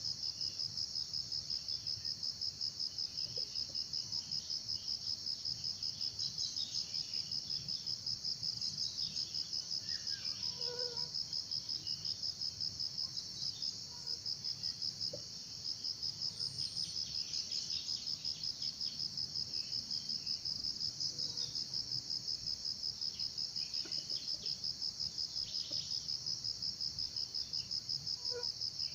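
A high-pitched insect trill, crickets or cicadas, running without a break in rapid, even pulses.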